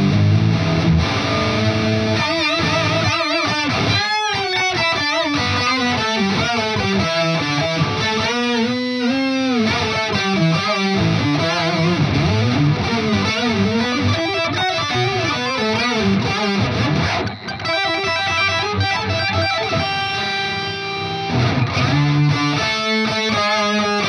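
Distorted electric guitar played through an Electro-Harmonix Intelligent Harmony Machine pedal set as an octave effect, the pedal adding a second voice that moves with each note. Single-note lines with bent, wavering notes.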